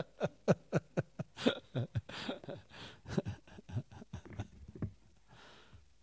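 Breathy laughter: a quick run of chuckling pulses that thins out and fades into soft breaths near the end.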